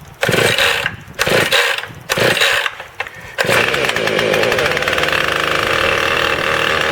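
Husqvarna 450 Rancher two-stroke chainsaw being pull-started cold on choke: three short bursts of the starter pull, then the engine catches about three and a half seconds in and runs steadily at a high fast idle.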